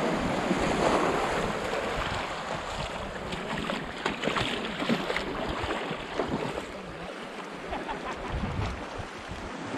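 Sea waves washing on the shore, with wind buffeting the microphone; louder in the first few seconds and easing off later, with a few small scattered clicks and knocks.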